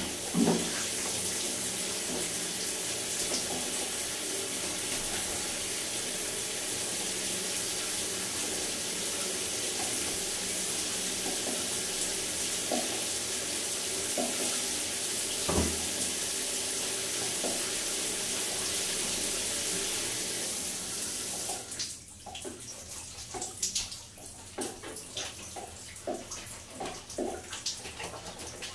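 Water running steadily, an even rushing hiss that cuts off suddenly about three quarters of the way through, leaving irregular drips.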